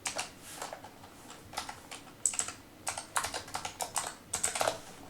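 Typing on a computer keyboard: irregular runs of key clicks, some in quick flurries.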